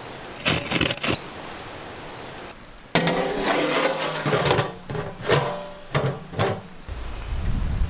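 A big metal lid clanking and scraping against the rim of a large metal cooking pot, the metal ringing as it is settled in place, with a few sharp knocks about half a second in. Wind rumbles on the microphone near the end.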